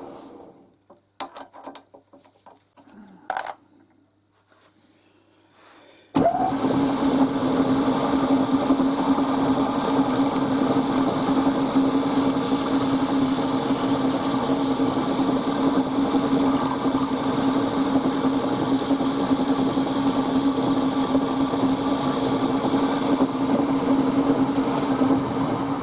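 A few light metallic clicks and a short ringing tap, like small metal parts being handled. About six seconds in, a workshop machine starts abruptly and runs at a steady pitch with a strong hum and hiss, fading near the end.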